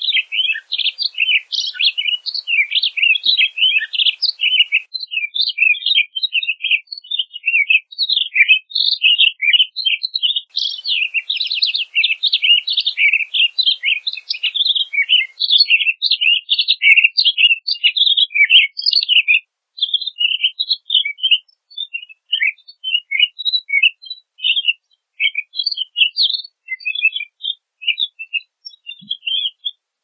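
Pine grosbeak singing: a long, fast warbling run of chirped notes, dense for most of the time and thinning into scattered phrases with short pauses after about two-thirds of the way.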